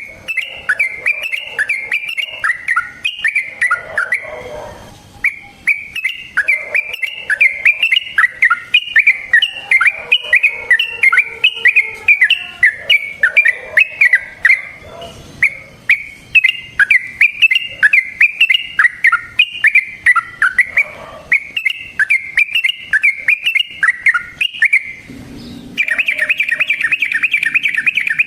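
Yellow-vented bulbul (trucukan) singing a long, fast run of bubbly chattering notes with hardly a pause, breaking off briefly once early on and running into a denser unbroken trill near the end.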